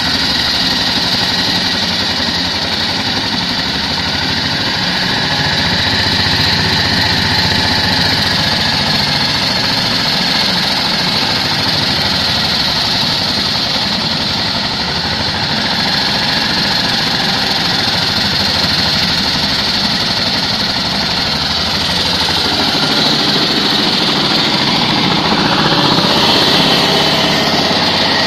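Walk-behind concrete cutter running steadily on its engine while its blade cuts wet concrete, a continuous engine note under a high grinding noise.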